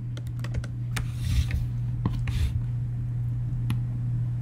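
Computer keyboard keystrokes: a quick run of key clicks at the start, then a few separate clicks and two short bursts of hiss, over a steady low hum.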